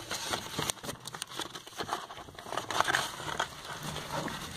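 Paper and packaging rustling and crinkling, with irregular small crackles as a catalogue and its wrapping are handled in a cardboard box.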